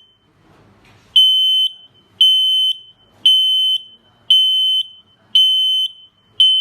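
Gartec SS368-NB smoke alarm sounding its alarm signal, which RF-paired alarms sound together. It gives high-pitched beeps about once a second, starting about a second in, each a half-second tone ending in a short blip.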